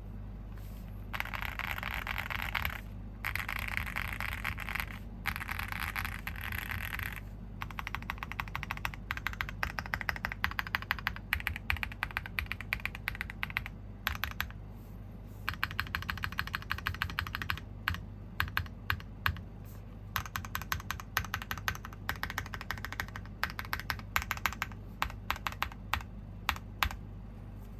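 Typing on a KBDFans Phase One 65 mechanical keyboard with a polycarbonate plate, stock WS Morandi switches, GMK Noire keycaps and full foam: a poppy, clacky keystroke sound. In the first few seconds the keystrokes come so fast they run together, then they follow as quick separate clacks with brief pauses about halfway through.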